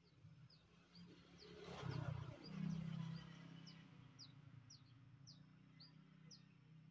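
A bird calling over and over with short, quick down-slurred chirps, two or three a second. About two seconds in, a louder low rumble with a hum swells up and fades after about a second and a half.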